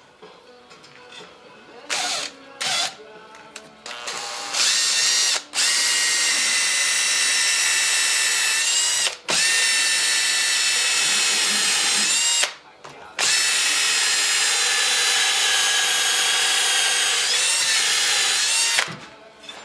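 Cordless drill boring into a clay brick: two short bursts of the motor, then a steady whine for several seconds at a time with a few brief stops.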